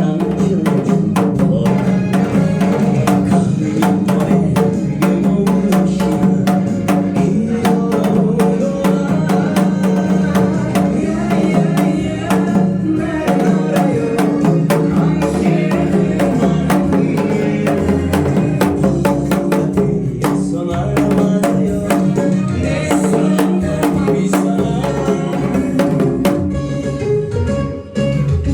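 Janggu (Korean hourglass drum) struck in a quick, steady rhythm along with a recorded backing song.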